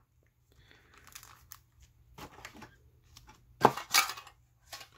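Foil Pokémon booster pack wrappers crinkling and crackling as they are handled, with a few louder sharp crackles about two-thirds of the way in.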